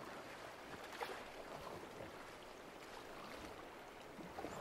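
Faint swish and lap of river water around a small hand-built boat as it is sculled along with a carved wooden paddle, with one light knock about a second in.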